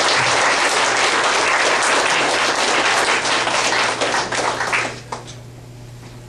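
Audience clapping steadily, dying away about five seconds in.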